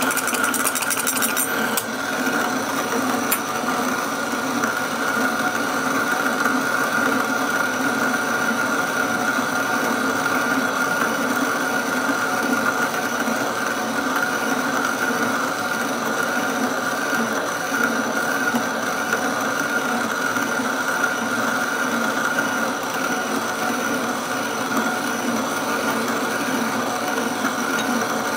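Wug2 coffee grinder running on its conical burrs at a slow 80 rpm, grinding a 17.5 g espresso dose: a steady motor hum with a constant high whine, and a fine crackle over the first couple of seconds.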